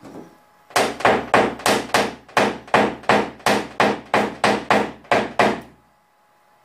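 A small dent-repair hammer taps the sheet metal of an Opel Astra's hood, about sixteen quick, evenly spaced strikes, roughly three a second, each with a short metallic ring. The strikes knock down a stubborn dent in paintless dent repair.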